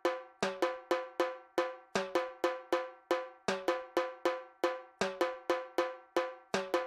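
Sampled timpani, the third of three layered timpani parts in a beat, playing alone: a looped run of short pitched strikes, about four a second, alternating between two notes, each dying away quickly.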